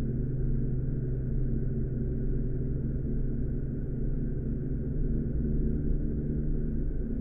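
A steady low droning hum made of several held low tones, with no distinct clicks, knocks or changes.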